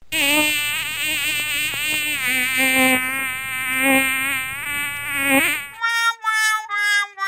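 Buzzing, insect-like sound effect with a wavering pitch. About six seconds in it gives way to a short run of stepped electronic notes.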